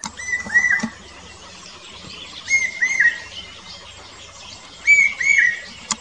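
Large hawk-cuckoo calling: phrases of two or three short, arched, shrill notes, repeated about every two and a half seconds.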